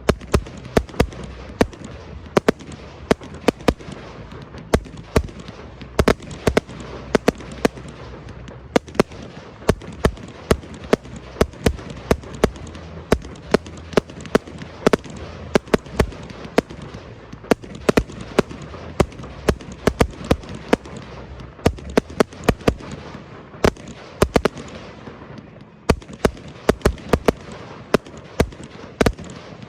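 Aerial fireworks display: a rapid, continuous barrage of shell bursts and sharp cracks, several a second, over a steady rumble, easing briefly a few seconds before the end.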